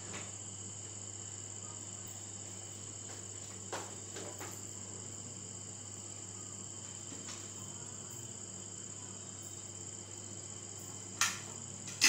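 Crickets trilling steadily at a high pitch over a low electrical hum, with a few soft handling knocks about four seconds in and again near the end.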